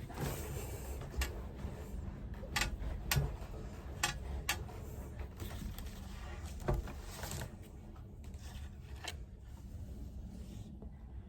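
Small objects handled on a desk: a handful of irregular sharp clicks and knocks, with a few brief bursts of rustling.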